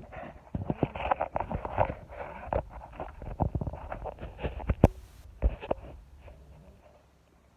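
Handling noise from a phone being gripped and turned in the hand: irregular thumps and rubbing on the microphone, with one sharp click about five seconds in, settling down near the end.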